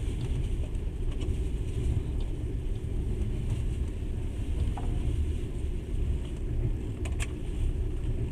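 Steady low rumble of a moving passenger train, heard inside the carriage, with a few faint clicks about seven seconds in.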